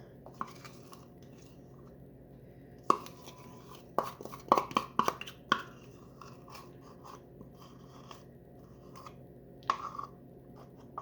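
A spoon scooping and scraping thick peanut butter out for the fudge, with sticky smacking sounds and a few sharp taps of the utensil against the cup. Most of the taps come in a cluster a few seconds in, and one comes near the end, over a faint steady hum.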